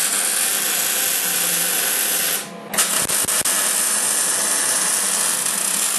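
Eastwood MIG 175 welder arc sizzling steadily as a bead is run on 1-inch square steel tube with C25 shielding gas. It cuts out for a moment a little over two seconds in, then restarts with a few sharp pops before sizzling on.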